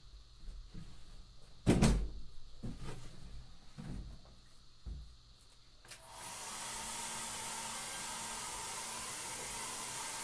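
A few knocks as the large wooden painting frame is handled and set down flat, the loudest about two seconds in. About six seconds in, a steady airy hiss starts and holds.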